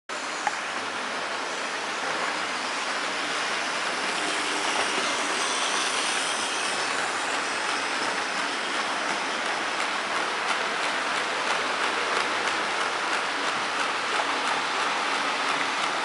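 Märklin model freight train, a DB class 44 locomotive pulling refrigerator wagons, running on metal M-track. The wheels on the tinplate rails make a steady rolling rattle and hiss that grows slightly after the start, with faint, evenly spaced clicks over the rail joints.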